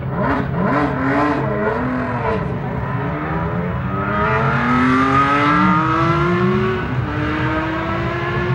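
Ferrari 333 SP's V12 racing engine, very loud. Its revs rise and fall quickly a few times over the first two seconds, then climb steadily under acceleration, with a gear change near seven seconds.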